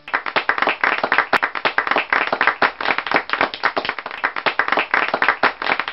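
People clapping: a dense run of quick, uneven hand claps.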